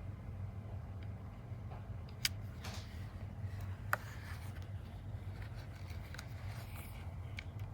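Low steady hum with a couple of sharp clicks, about two and four seconds in, and a few fainter ticks.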